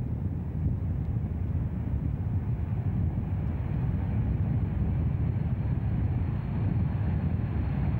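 Boeing 737 jet engines at takeoff power as the airliner accelerates down the runway: a steady low rumble, with a faint high whine coming in about halfway.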